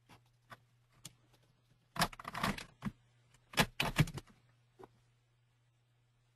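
Desk and handling noise close to the microphone: a few separate clicks, then two short bursts of rapid clattering about a second and a half apart, and one last click. A faint steady low hum runs underneath.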